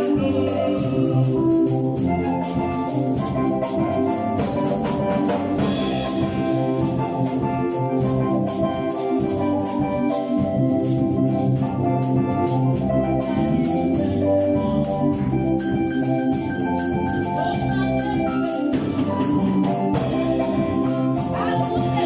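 Choir singing a praise song over instrumental accompaniment, with a steady shaker-like percussion beat.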